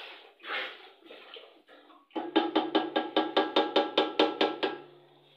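Milk glugging out of a carton into a steel pot. About two seconds in, a short burst of music starts: quick, even percussive notes, about six a second, over a low held tone, lasting about two and a half seconds.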